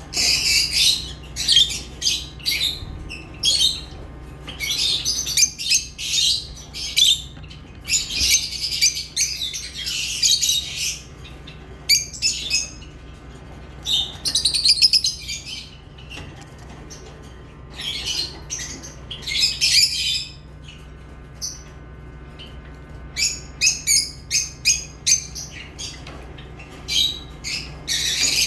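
Lovebirds chirping in clusters of short, high-pitched calls, with a lull of a few seconds about three quarters of the way through, over a faint steady low hum.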